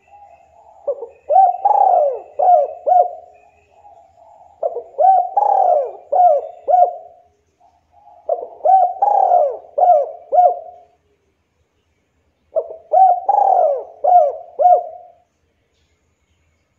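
Spotted dove cooing: four phrases, each a run of several quick, arching coo notes lasting two to three seconds, repeated every three to four seconds.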